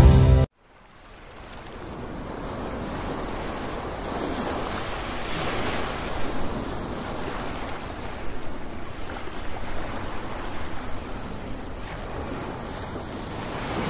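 Surf washing up onto a sandy beach, fading in after a brief gap and then rolling in gentle surges.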